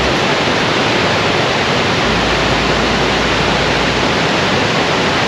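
Great Falls of the Potomac River: white water pouring over rocks, a loud, steady, even rush. A low rumble comes in for about two seconds midway.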